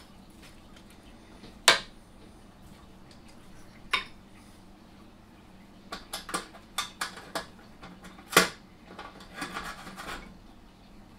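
Scattered sharp metallic clinks and knocks of metal parts being handled at a drill press vise, with a quick run of clinks in the middle and a short rustle near the end. The loudest knocks come about two seconds in and just past eight seconds in.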